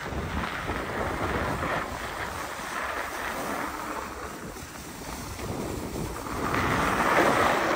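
Wind rushing over the microphone and skis sliding over snow on a downhill ski run, the rush growing louder near the end.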